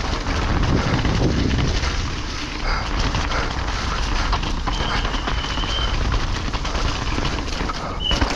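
Downhill mountain bike riding fast over a muddy forest trail, heard from the rider's camera: a steady rumble of tyres on wet ground with constant rattling clicks from the bike. A brief high squeal about five seconds in.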